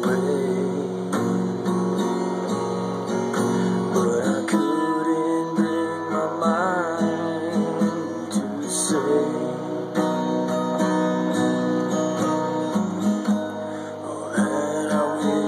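Acoustic guitar strumming a steady, repeating chord progression.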